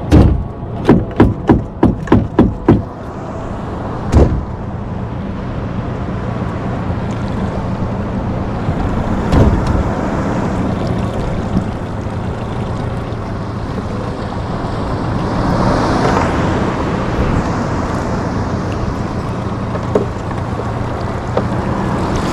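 A motor's steady low hum under water and wind noise, opened by a quick run of seven sharp knocks in the first three seconds, with single knocks about four and nine seconds in.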